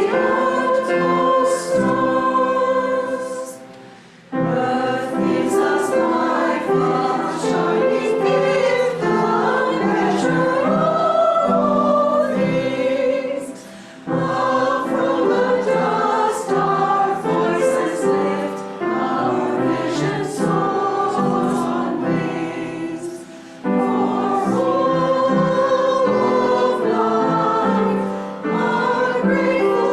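A group of voices singing a slow song together with piano accompaniment, in phrases separated by short pauses for breath.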